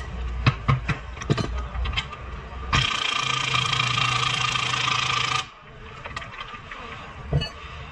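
A few metallic knocks and clicks of tools on parts, then a power tool runs steadily for about three seconds and cuts off suddenly, with a few more clicks after.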